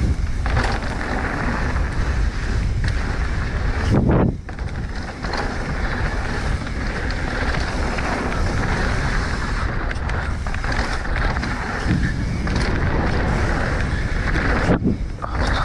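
Wind rushing over the microphone and tyres rolling over a dirt trail as a Specialized Enduro mountain bike is ridden downhill, with a brief change in the rush about four seconds in and again near the end.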